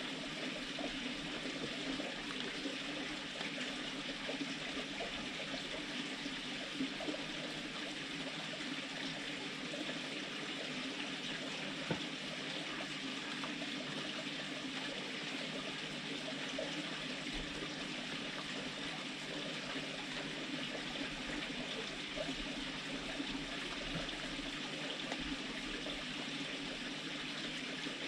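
Red fox eating dry food from a stainless steel bowl: small crackly crunches and clicks over a steady hiss, with one sharper click about twelve seconds in.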